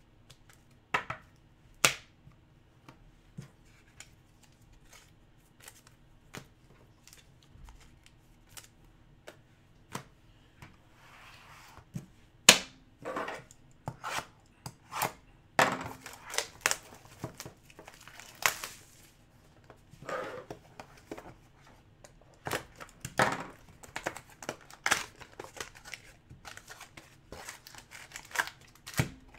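A pocket knife cutting open the shrink-wrap and cardboard of a sealed trading card box, then the box being opened and its foil packs pulled out: scattered sharp clicks and taps with bursts of tearing and crinkling of wrap and cardboard, busier in the second half.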